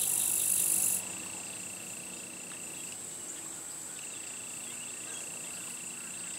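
Insects trilling steadily in two high, even pitches; the lower trill stops for about a second partway through, then carries on. A louder high hiss sounds over them for the first second and cuts off suddenly.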